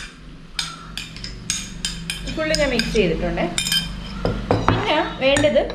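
Metal spoon clinking and scraping against ceramic dishes in a string of sharp taps, as custard apple pulp is spooned out of one dish into a bowl of cream and ice cream.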